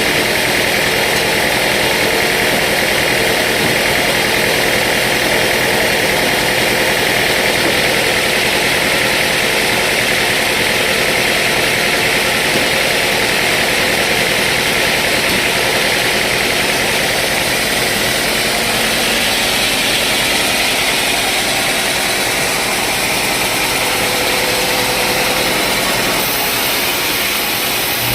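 Sawmill saw machinery running loud and steady, with a hissing noise strongest in the upper-middle range and a slight change in tone near the end.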